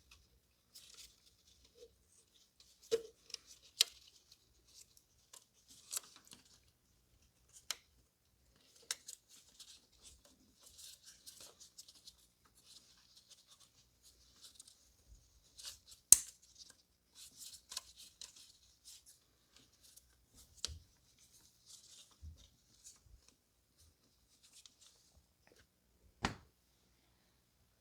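Faint hand-handling of plastic ignition coils and wiring connectors being pushed into place on an engine: light rustling broken by scattered sharp clicks and knocks, the loudest about 16 seconds in.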